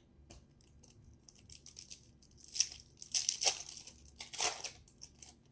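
Foil wrapper of a baseball card pack being torn open and crinkled: a few sharp tearing rips in the middle, after some small handling clicks.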